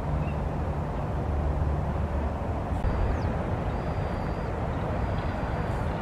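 Steady low rumble of distant road traffic, with a few faint, thin high whistles from about halfway on.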